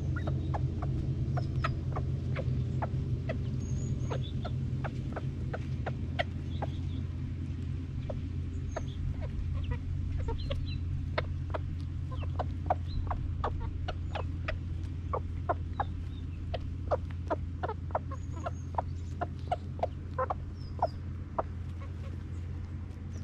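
Chickens feeding on maggots scattered over bare ground: many quick, irregular beak taps on the soil with soft clucks and a few small high chirps, over a low steady hum.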